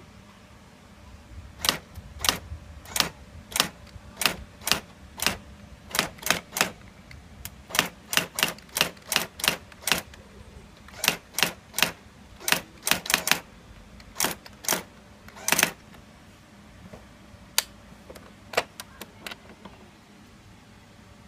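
Brother AX-12 electronic daisy-wheel typewriter typing: sharp, irregular key strikes, a few a second, for about fourteen seconds, ending in a quick cluster. A few scattered strikes follow before it stops.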